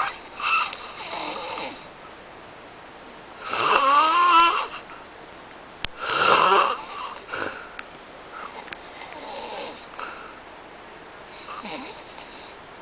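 A man snoring heavily, each snore a separate loud breath about every two and a half to three seconds. The loudest comes about four seconds in with a wavering pitch, and the last few are quieter.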